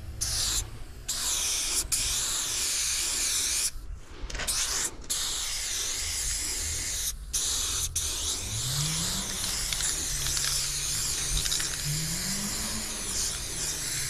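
Aerosol spray paint can hissing in long bursts with short breaks, spraying paint onto the steel side of a freight car. A low hum rises in pitch twice in the background during the second half.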